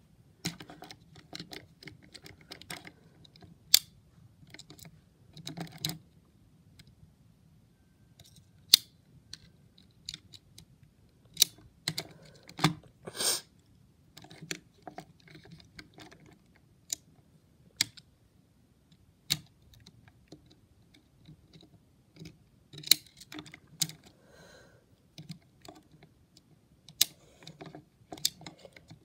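Small plastic parts of a Hexbug toy battlebot being handled and worked on by hand: irregular clicks, taps and knocks of hard plastic, with a short scrape about 13 seconds in.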